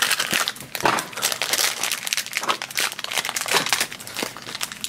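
Crinkly plastic wrapper from a small toy blind pack being pulled open and unwrapped by hand, after the little cardboard box is opened: a run of quick crackles and rustles.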